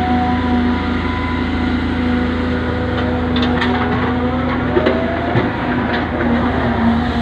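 Excavator's diesel engine running steadily, with a whine that rises in pitch around the middle and a few short knocks and clanks.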